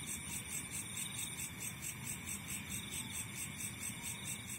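A chorus of night insects trilling: a steady high-pitched trill with a fast, even pulsing above it, over a low background rumble.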